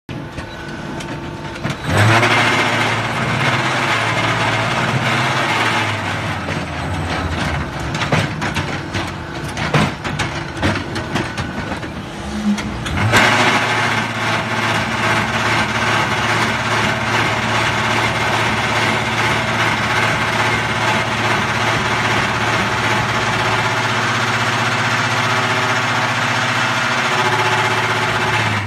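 Zenith 913 mobile egg-laying concrete block machine running through a brick-making cycle: a loud, steady mechanical hum and rattle. About a third of the way in there is a stretch of irregular clattering, and from about halfway it settles into a louder, steady vibrating hum.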